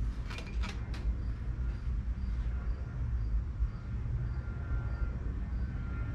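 A few light clicks from the old head gasket being lifted off the engine block, about half a second to a second in, over a steady low rumble.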